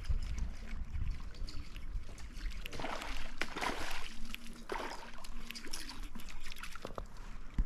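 Kayak paddle working the water, with splashing and trickling off the blade about three to five seconds in, over a steady low rumble.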